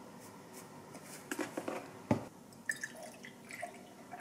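A few light knocks and one sharp tap on the counter about two seconds in, then milk poured from a paper carton into a glass tumbler, splashing and dripping.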